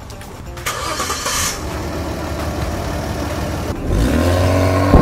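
Car engine starts and runs with a loud exhaust, then is revved about four seconds in, its pitch rising, with one sharp bang near the end. A roaring exhaust note that changes tone when revving is a sign of a defective muffler or exhaust system.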